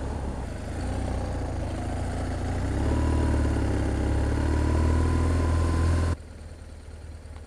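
BMW R1200 R's boxer twin engine running as the motorcycle rides along, growing louder about three seconds in. Just after six seconds the sound drops abruptly to a much quieter engine note.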